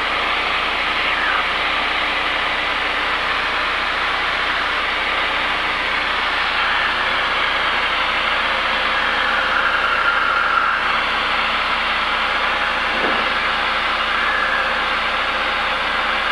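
Steady drone of a Cessna 172's engine and propeller in flight, heard inside the cabin as an even, unchanging noise.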